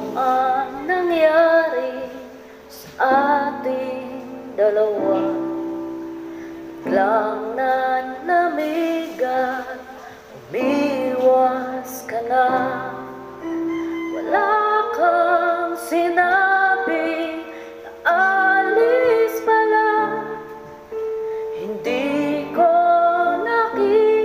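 A slow ballad: a woman's voice sings melodic phrases with vibrato over held accompaniment chords.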